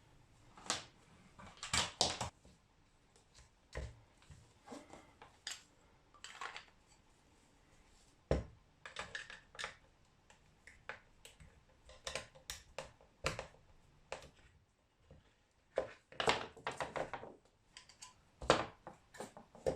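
Plastic housing and internal parts of a KVT TT-2000 heat gun being handled and pried apart during disassembly: scattered clicks, knocks and rustles at irregular intervals.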